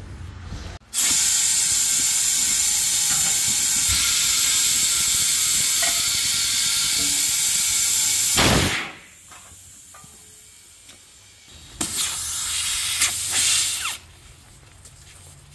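Compressed air hissing into a truck tire on its rim as it is inflated: one long blast of about eight seconds that cuts off suddenly, then a shorter blast of about two seconds.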